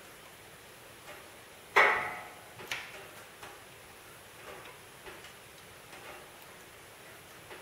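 Wood fire crackling in a Justus Faro Plus wood-burning stove: one loud sharp pop about two seconds in, then scattered smaller crackles over a low hiss.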